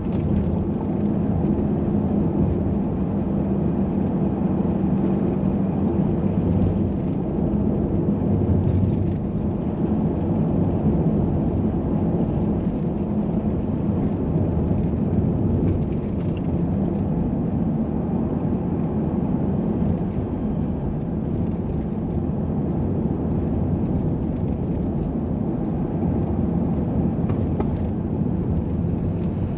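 Minivan driving, heard from inside the cabin: steady road and engine noise, a low rumble with a faint engine drone.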